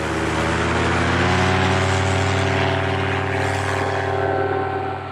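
Polini Thor 250 single-cylinder two-stroke paramotor engine on a Kangook KX1 trike, running steadily with its propeller; the sound drops a little near the end.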